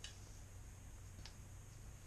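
Two faint clicks as a metal gas burner tube is handled and drawn out of its plastic wrapping, over a low steady hum.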